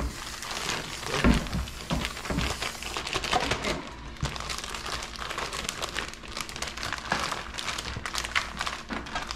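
Plastic zip-top bag crinkling and rustling as chicken pieces inside are squished around to coat them in cornstarch, with a few soft thumps against the counter about a second in.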